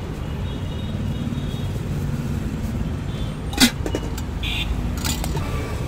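Steady low rumble of road traffic, with one sharp metallic clink about three and a half seconds in and a few lighter clinks near the end, from steel pots, lids and ladles being handled.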